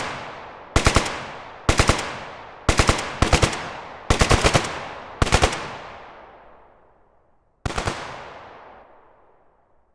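Automatic gunfire samples from the Krotos Weaponiser weapon sound library: seven short bursts of three to five rapid shots, each trailing off in a long echoing tail. The last burst comes after a pause of about two seconds.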